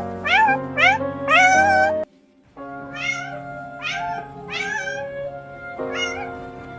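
A cat meowing over and over, about seven rising, high-pitched meows, the fourth one drawn out, over background music of held notes. Meows and music break off together for a moment about two seconds in.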